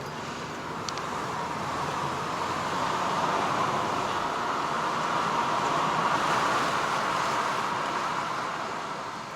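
Tyre and road noise of a moving car heard from inside the cabin: an even rush that swells to a peak mid-way and fades away near the end.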